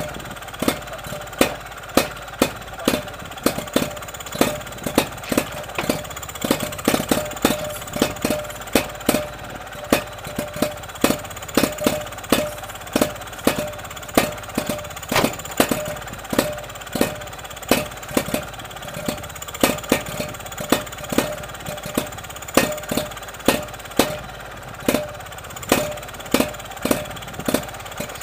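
Villiers WXII stationary engine running, with sharp beats about twice a second, slightly uneven, over a steady mechanical running sound.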